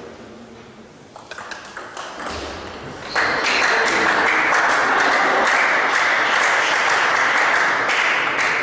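Table tennis ball clicking off bats and table in a rally, then about three seconds in, spectators break into loud, sustained applause as the point ends.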